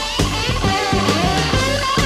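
Hard rock band recording with no vocals: an electric guitar plays gliding, bent notes over steady bass and regular drum hits.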